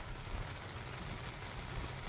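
Steady rainfall with wind, a low rumble running underneath the even hiss of the rain.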